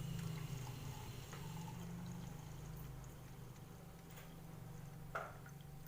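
Warm ginger and kencur (aromatic ginger) decoction being poured into a glass, faint. A single short knock comes near the end.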